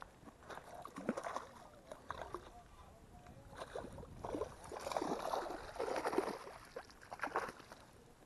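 Water splashing and sloshing in irregular bursts as a hooked trout thrashes at the surface and is scooped into a landing net.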